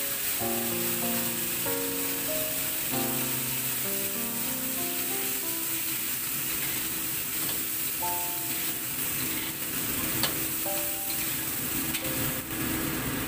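Eggplant chunks sizzling in hot oil in a wok as they are stirred with a spatula, a steady hiss throughout. Background music with a simple melody plays over it.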